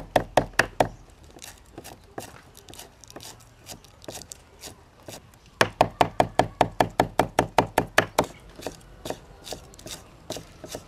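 Cleaver chopping leafy greens on a wooden chopping board. A quick run of knocks at about seven a second at the start, scattered single chops, then a longer fast run from about halfway through lasting a couple of seconds.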